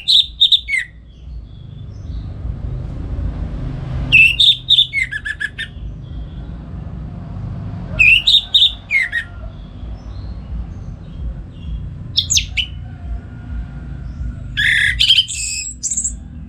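Orange-headed thrush singing: short loud phrases of sliding whistled notes, one about every four seconds, then near the end harsher, higher calls.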